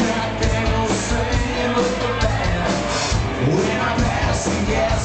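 Live rock band playing, electric guitar over a drum kit.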